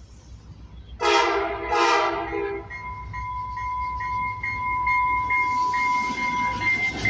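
Train horn sounding two short blasts about a second in, over the low rumble of the train. After the horn, a steady high ringing tone holds with a higher tone pulsing about twice a second, stopping near the end.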